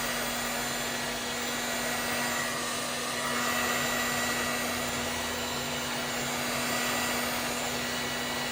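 Heat gun blowing steadily, with a constant low hum under the rush of air.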